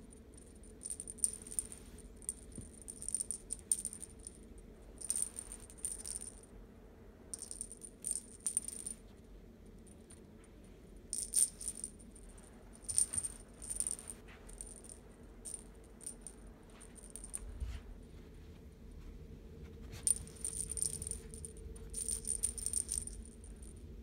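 A cat's owl toy rattling and jingling in short, irregular bursts as a cat bats and grabs at it. The bursts come every second or two, with a quick cluster of them near the end.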